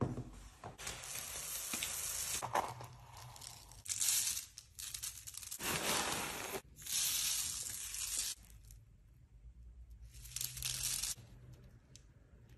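Plastic zip-lock bag crinkling while small foam beads rustle and pour into a plastic tub, in several bursts of hissy rustling with short pauses between them.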